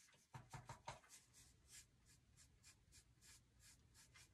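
Stippler brush pouncing acrylic paint onto a painted board: faint, quick dabs at about four a second, a few louder ones in the first second.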